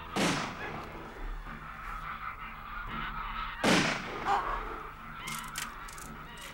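Two musket shots, one right at the start and one about three and a half seconds later, each a sharp loud crack that rings off, with birds calling in between.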